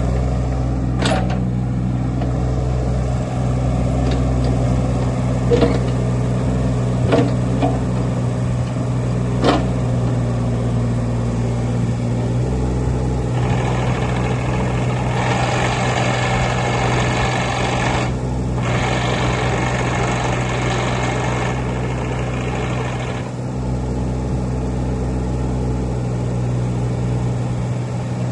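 Bobcat E26 mini excavator's diesel engine running steadily, with a few sharp knocks in the first ten seconds. About halfway through, a louder hissing noise comes in for some ten seconds, broken once briefly.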